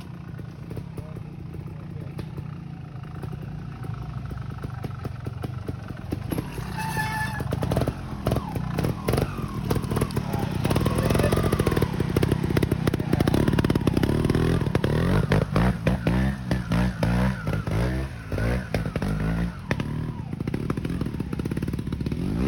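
A 300cc two-stroke trials motorcycle engine, on a TRS RR sidecar outfit, running low at first. From about eight seconds in it is revved up and down again and again, the revs rising and falling over and over through the second half as it works along the section.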